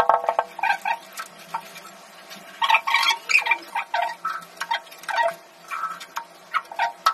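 Irregular hard clicks and knocks, some in quick clusters and each with a brief ringing tail, from wall-tiling work with ceramic tiles and tile leveling clips.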